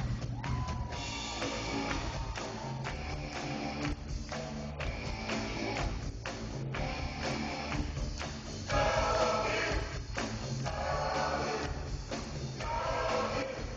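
Live rock band playing in a concert hall, heard from within the audience: drum kit and guitars, with louder sung phrases coming in from about nine seconds in.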